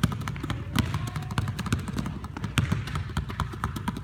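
Basketballs dribbled low and fast in a figure 8 dribble drill, a rapid, uneven patter of bounces on the floor from more than one ball.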